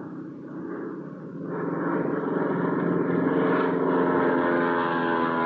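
Aircraft engine sound effect: a steady engine hum that swells louder about a second and a half in and then holds.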